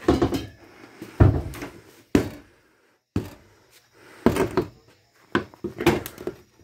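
A series of irregular wooden knocks and thuds, about one or two a second, from thin camper wall paneling being pried and knocked loose during demolition.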